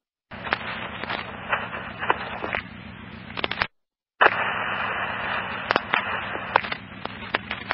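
Fire department radio scanner with open transmissions that carry no words, only static hiss, a low steady hum and sharp crackles. It cuts in and out abruptly, with dead gaps just after the start and about four seconds in.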